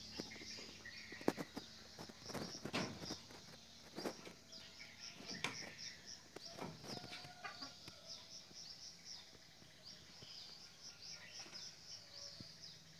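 Night insects, crickets or katydids, chirping in a steady rhythm of short high pulses, about three a second. Several louder, irregular sounds break in during the first seven seconds.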